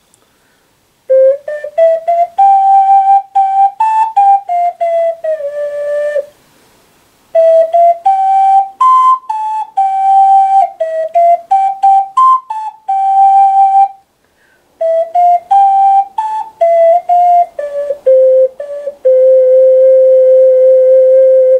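Wooden soprano ocarina played: a melody in three phrases with short breaks between them, ending on one long held low note.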